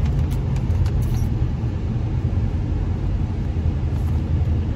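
Steady low rumble of engine and road noise heard inside the cabin of a moving car, with a few faint clicks about a second in.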